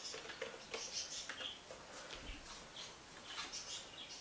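Faint, irregular soft clicks of keys being typed on a computer keyboard.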